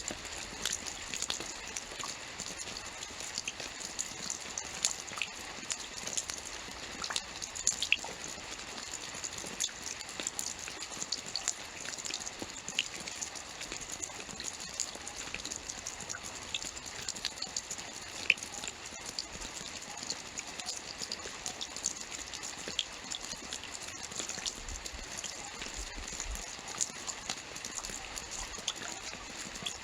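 Steady rainfall: an even hiss of rain with many small, sharp drop ticks scattered throughout.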